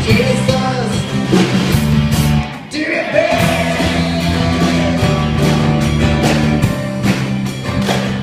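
Rock-style band music with electric guitar and a sung line. A brief break in the music comes about two and a half seconds in, then the band comes back in.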